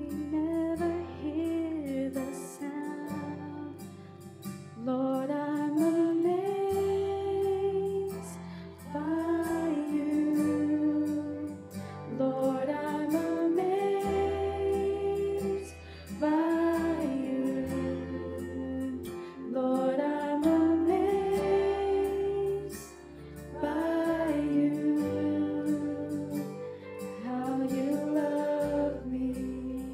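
Live worship band music: a woman sings lead in phrases of a few seconds, with backing singers, over acoustic guitar and sustained low bass notes.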